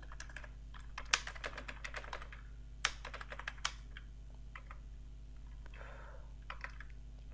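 Computer keyboard being typed on: quick runs of key clicks that thin out to a few scattered taps after about four seconds, over a steady low hum.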